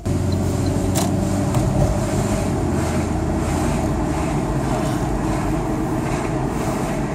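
Steady road and wind noise inside a moving car, with a low rumble and air rushing through the cabin. A single click about a second in.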